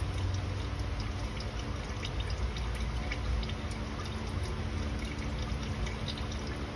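Used engine oil trickling in a thin stream from the oil pan's drain hole into a drain pan, with scattered small drips: the drain is nearly finished, down to a slow drip. A steady low hum runs underneath.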